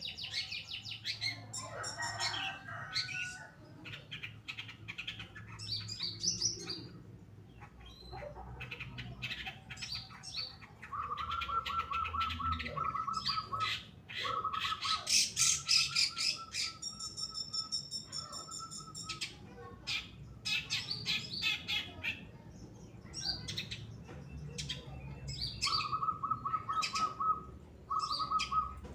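Long-tailed shrike singing a fast, varied song of sharp chirps and harsh call notes, broken by short trills held on one steady pitch about halfway through and again near the end.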